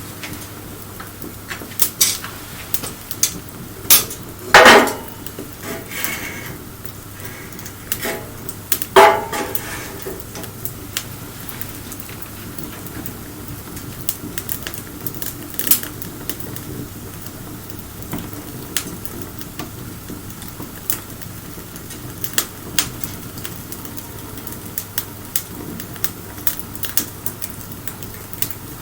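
Wood fire crackling, with sharp irregular pops throughout and two louder ringing knocks about five and nine seconds in.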